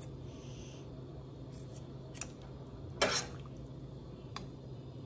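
A metal fork and ladle clink against a stainless steel pot of simmering beef broth as chunks of beef are lifted and prodded to test how tender they are: a few light taps and one louder clatter about three seconds in, over a steady low hum.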